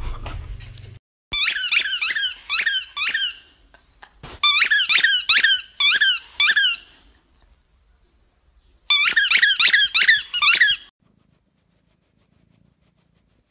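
A boxer dog chomping a squeaky tennis ball: rapid high squeaks, several a second, in three runs of about two seconds each with short pauses between.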